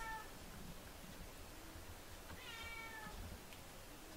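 A domestic cat meowing: the tail of a short high meow right at the start, then one clear meow about two and a half seconds in. Each call falls slightly in pitch.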